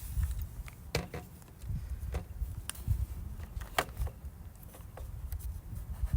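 Scattered light clicks and taps of a screwdriver and hands working at a laptop's stripped screw and casing, over a low rumble.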